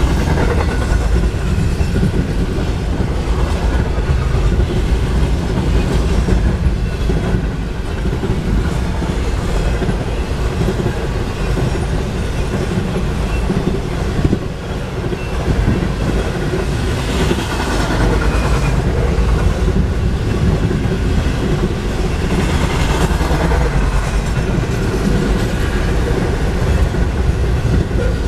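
Double-stack intermodal container cars of a freight train rolling past close by: a loud, steady rumble of steel wheels on the rails, with brighter swells of wheel noise twice in the second half.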